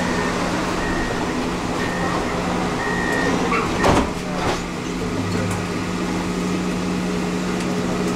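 Tram passenger cabin with a steady drive and ventilation hum, while the door warning signal beeps four times, about a second apart. Just before four seconds in the doors shut with a knock, followed by a smaller one.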